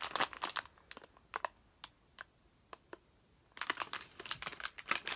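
Foil blind-bag packet crinkling and crackling as it is handled, in two spells of dense rustling with a quieter stretch in the middle.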